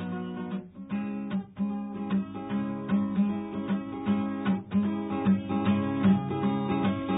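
Instrumental music: a steady strummed accompaniment, with no singing.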